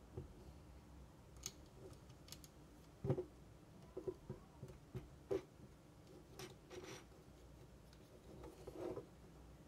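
Plastic LEGO pieces being handled and pressed together: scattered faint clicks and rustles, with a few sharper clicks about three and five seconds in.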